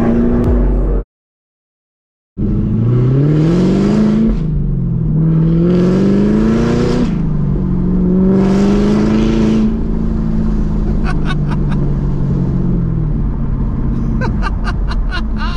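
Camaro ZL1's supercharged 6.2 L V8 through a Corsa NPP exhaust, heard from inside the cabin as the car accelerates: the engine note climbs, drops back, and climbs again several times, then holds steady and eases off. About a second in, the sound cuts out entirely for more than a second. Near the end comes a run of quick ticks.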